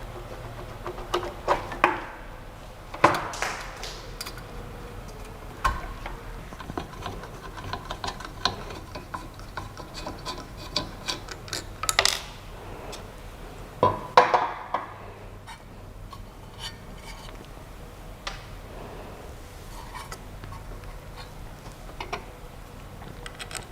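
Irregular small clicks, taps and knocks with some rubbing, from hands handling and setting up the Creality CP-01 machine, over a faint steady low hum.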